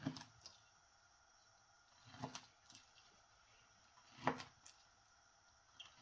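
Three short knocks about two seconds apart, each followed by a faint click, over a quiet background.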